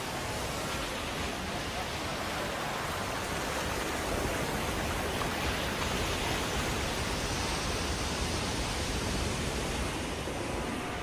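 Heavy surf churning and breaking over rocks: a steady rush of white water.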